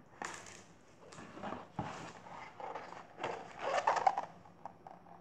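A child's mouth noises: about five short blown bursts over four seconds, the last the loudest.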